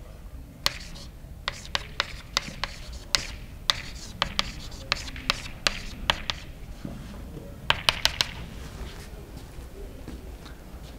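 Chalk writing on a blackboard: a string of sharp chalk taps and short scratchy strokes, stopping a little after eight seconds in.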